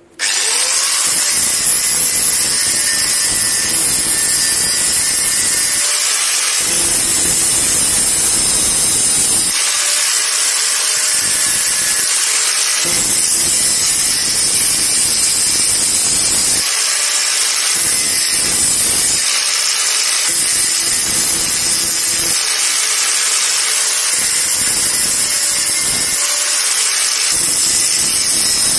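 Corded electric angle grinder switched on, its pitch rising briefly as it spins up to speed, then grinding a block of titanium with a steady hiss. The heavier grinding noise comes and goes in stretches of a second or two as the disc bites the metal and eases off, taking the blackened surface off the block.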